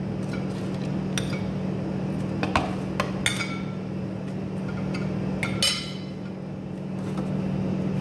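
A metal spoon clinks several times against a ceramic plate as fried cauliflower florets are scooped up and dropped into a bamboo bowl. The loudest clinks come about three and five and a half seconds in, over a steady low hum.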